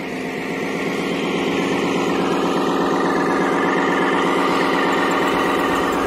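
Steady engine-like drone from a remote-control excavator, swelling up over the first second or so and then holding even.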